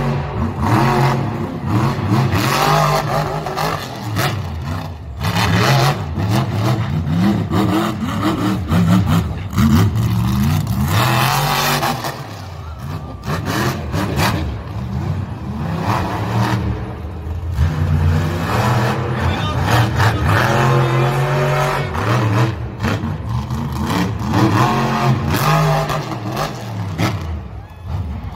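Monster truck engines revving hard, their pitch rising and falling over and over as the trucks accelerate and ease off, with the loudest surge about eleven seconds in.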